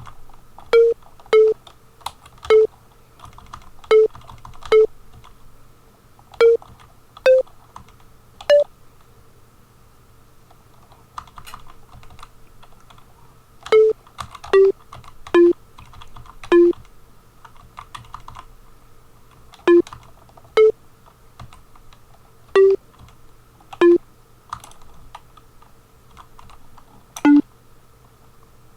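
Computer keyboard typing, with short single notes from an Amiga soundtracker sample sounding one at a time as keys are pressed: a melody line being entered note by note in a tracker. About seventeen brief notes at changing pitches come at irregular intervals, with pauses between them.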